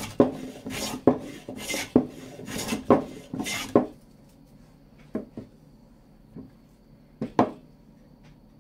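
Hand smoothing plane taking about five quick shaving strokes along a board's edge, one every second or less, each a rasp ending in a click, to trim a gap out of an edge glue joint. After that there are a few sharp wooden knocks.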